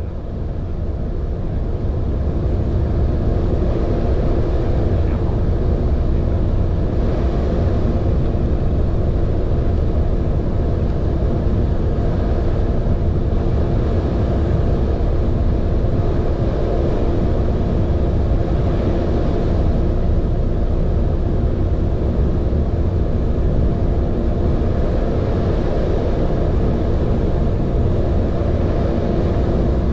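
Steady drone of a car ferry's engines heard from the open deck, with a low rumble of wind and water under it. It fades in over the first couple of seconds.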